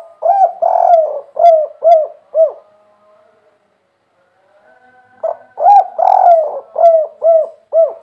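Spotted dove cooing: two phrases about three seconds apart, each a quick run of short coos around one longer, drawn-out note.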